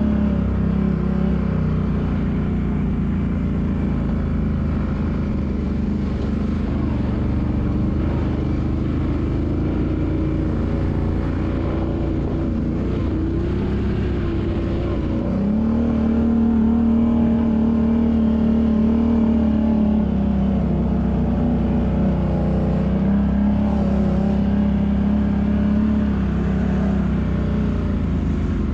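ATV engine running steadily while riding over a gravel track, its pitch stepping up about halfway through, easing back down and rising again near the end.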